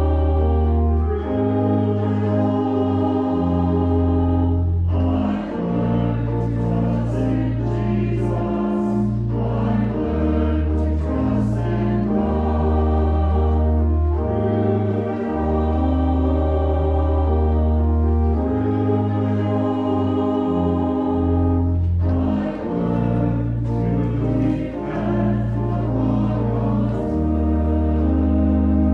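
A hymn: voices singing over slow, sustained chords with a moving bass line.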